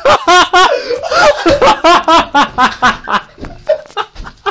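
Loud, hard laughter in quick repeated bursts, tailing off near the end.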